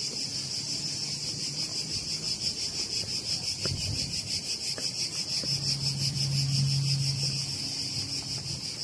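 Steady, high, shrill chorus of insects chirring in the trees, pulsing finely without a break. A low steady hum joins for a couple of seconds past the middle.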